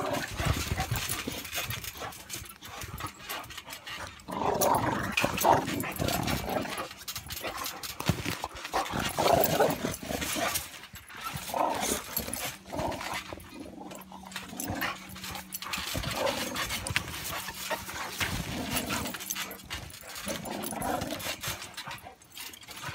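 Two boxer dogs play-fighting, growling in bursts, with scuffling on the trampoline mat.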